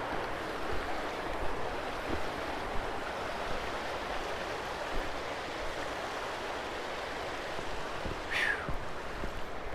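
Steady rushing of a river running over rocky rapids, with scattered light knocks and rustles. Near the end a short high whistle falls in pitch.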